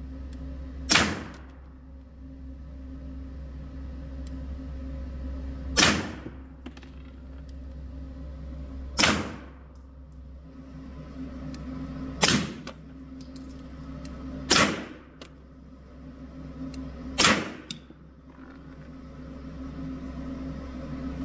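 Suppressed TISAS PX9 Gen 3 9mm pistol fired six times at a slow, deliberate pace, each shot a sharp report a few seconds apart with a short echo, over a steady low hum.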